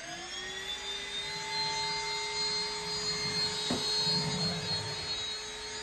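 Cordless stick vacuum cleaner switched on and running, its motor whine climbing just after start-up and then holding at a steady pitch as it is pushed across a smooth floor. A light knock a little past halfway.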